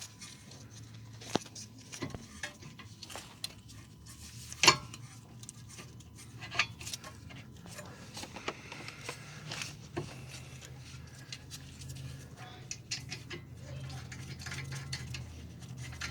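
Metal clinks and knocks of a brake caliper being fitted back over new brake pads onto its bracket, with one loud clank about five seconds in.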